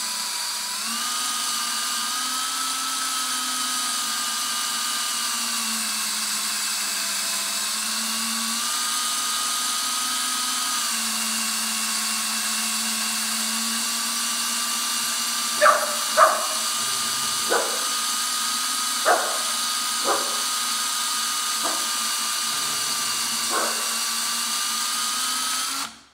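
Cordless drill running steadily, spinning a .308 brass case against the carbide cutter of a Sinclair neck-turning tool as the case neck is turned; the whine wavers slightly in pitch. A puppy barks about seven times in the second half, set off by the drill, and the drill stops right at the end.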